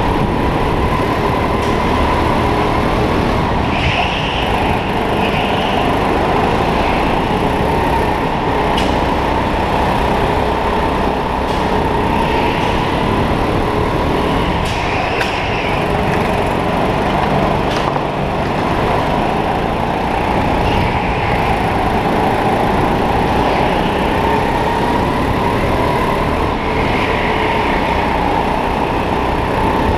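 Indoor racing kart's motor heard from on board at speed, a continuous whine whose pitch rises and falls gently through the laps, over a dense rumble of running noise. Short hissy swells come and go every few seconds.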